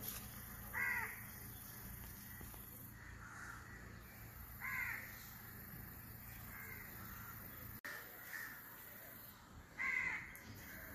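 Crows cawing: three louder caws about four to five seconds apart, with fainter caws in between, over a steady low background hum.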